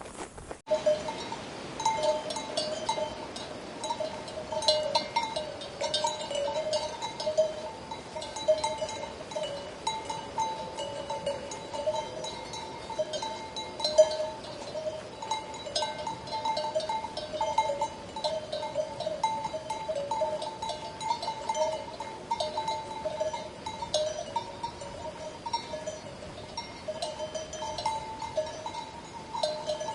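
Livestock neck bells on a grazing flock clanking irregularly and without a break, ringing at two main pitches, starting about half a second in.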